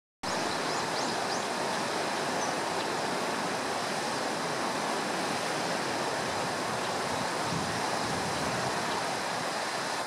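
Steady rushing of a swollen, muddy river in flood after a typhoon, with a few faint high chirps about a second in.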